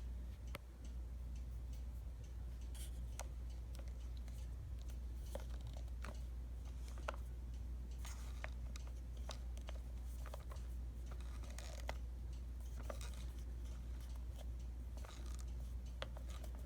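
Scattered light clicks and small knocks of a resin ball-jointed doll's parts being handled and posed, with brief faint rustling, over a steady low hum.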